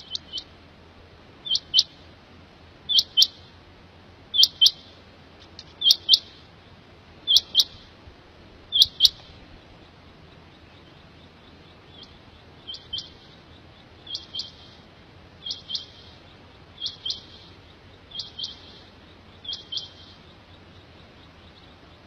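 Quail (batair) calling: a run of sharp two-note calls about one and a half seconds apart, seven in a row, then after a pause of about three seconds a softer run of six more.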